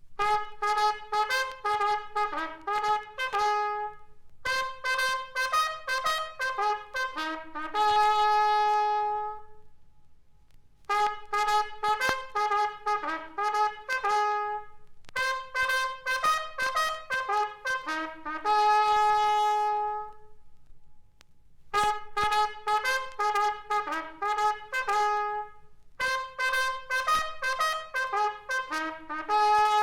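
Japanese military bugle sounding a call: runs of quick short notes, each phrase ending on a long held note. The phrase comes three times.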